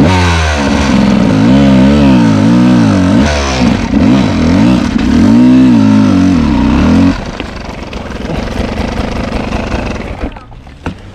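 Dirt bike engine revving hard in repeated rises and falls of about a second each, then cutting out abruptly about seven seconds in, as a rider tries to power up a steep hill climb where riders are getting stuck.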